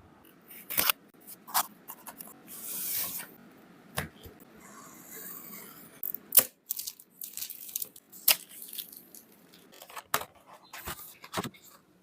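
Journal kit packaging and contents handled by hand: irregular rustling and tearing, with sharp taps and clicks every second or two.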